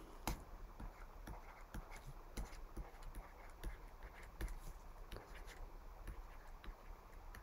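Faint, irregular small clicks and taps of a stylus writing on a graphics tablet.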